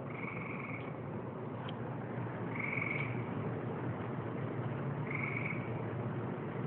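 A short, high-pitched buzzy call repeated three times, about two and a half seconds apart, over a steady low background hum. The source is an unidentified animal.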